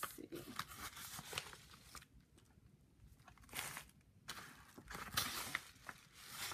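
Paper and tissue paper rustling and crinkling as crafting mail is handled, with a few light ticks. The rustles come in bursts, the loudest a little past the middle.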